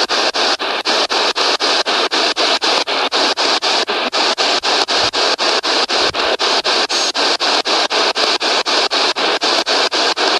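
P-SB7 spirit box sweeping through radio stations: a loud hiss of static chopped into about five short pulses a second. No voices come through the sweep.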